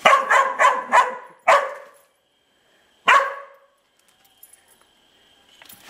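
Small dog barking at a turtle: a quick run of about five sharp barks in the first two seconds, then one more bark about three seconds in.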